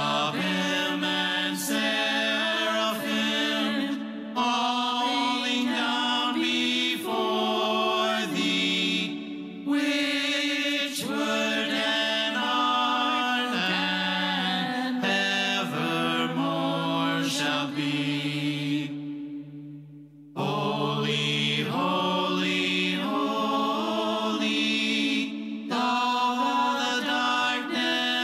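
Worship song: voices singing in sustained phrases over steady low notes. The sound breaks off briefly about twenty seconds in, then the singing resumes.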